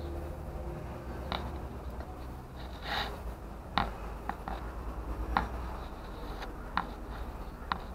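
Scattered light clicks and short scratchy scrapes, about nine in all, as a kitten shifts in a plastic litter box and steps out onto a blanket in a wire cage, over a steady low hum.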